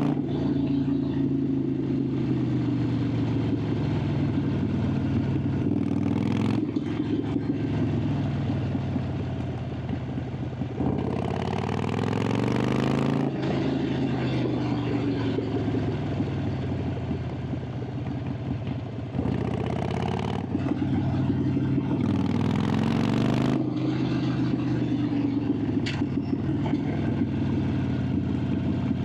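Harley-Davidson Sportster 883's air-cooled V-twin running under way, its exhaust note rising and falling repeatedly as the rider opens and rolls off the throttle through the gears.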